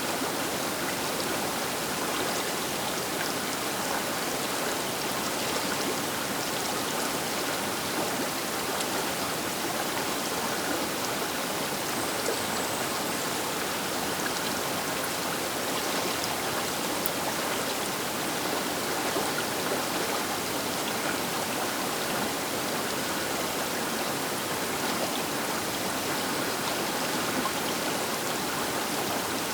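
Baker River water rushing past its bank: a steady, even hiss of flowing water with no breaks.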